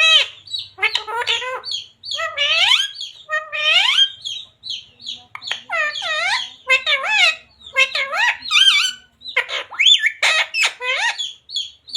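Pet parrot calling and chattering: a rapid run of short, high-pitched squawks and whistled calls that slide up and down in pitch, with small chirps between them.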